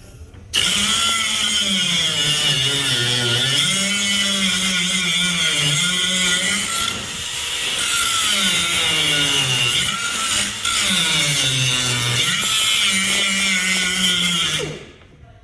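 Handheld electric power tool running on the metal door hinge, its motor pitch repeatedly dropping and recovering as it bites under load, with a harsh metallic hiss; it starts about half a second in and stops just before the end.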